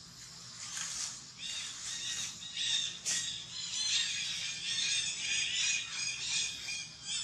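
Many short, high-pitched chirping and squawking animal calls, overlapping one another, sparse at first and crowding together from a little after two seconds in.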